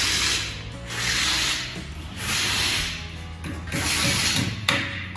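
Garage work noise: a hissing, rasping stroke repeated about once a second, over the low steady hum of the Buick's Fireball V8 idling, with a single sharp click near the end.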